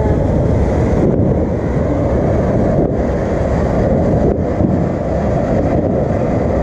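Ground fountain firework spraying a column of sparks with a loud, steady rushing hiss.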